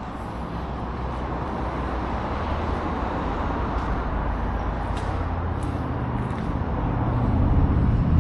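Steady rumble of road traffic, swelling louder near the end as a heavy vehicle comes closer.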